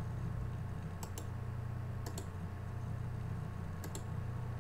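Computer mouse clicking in pairs, about a second in, again around two seconds and once more near the end, over a steady low electrical hum.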